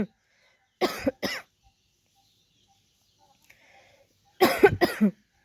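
A woman coughing from a cold: two quick coughs about a second in, then a run of several coughs close together near the end.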